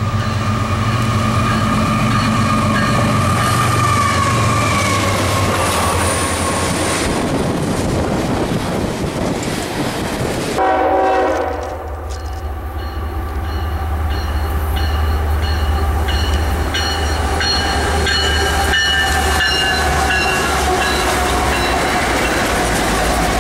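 An approaching train sounding its horn, the horn's pitch sinking slightly as it nears. After an abrupt cut about ten seconds in, CSX diesel freight locomotives pass close by with a heavy, steady engine rumble and wheel noise on the rails, with high steady ringing tones over it.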